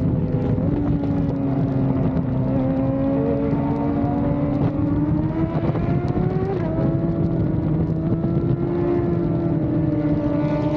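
A superbike engine running at a steady highway cruise. Its pitch creeps slowly up, steps up a little about six and a half seconds in, then eases back slightly.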